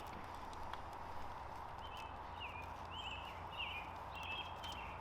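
A small bird chirping, short quick gliding notes repeated several times a second from a little under halfway in, over a steady background hum and rumble, with a few faint clicks.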